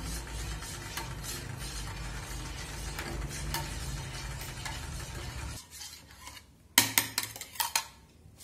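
A metal spoon stirring orange juice and dissolved gelatin in a small steel bowl, with light scrapes and ticks over a steady low hum. The hum stops about five and a half seconds in, and a few sharp metal clinks follow as the bowl is set down.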